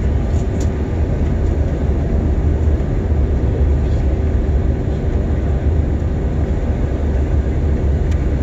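Airliner engine and airflow noise heard inside the passenger cabin during the landing approach: a loud, steady, deep rumble with a hiss above it.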